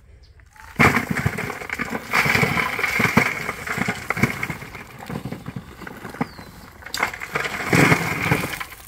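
Clods of hard, dry earth tipped from a bucket onto a corrugated metal sheet: a long clattering rattle of lumps and grit landing on the metal. It starts about a second in and comes in surges, loudest near the start and again near the end.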